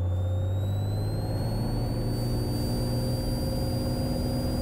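Cessna 182T's Lycoming IO-540 six-cylinder engine and propeller coming up to full takeoff power. The pitch rises over the first two seconds or so, then holds steady as the takeoff roll begins.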